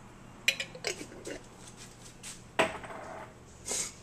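Kitchen handling noises around a foil pan on an oven rack: a few sharp clicks and knocks, a louder clatter with brief ringing about two and a half seconds in, and a short rustle near the end.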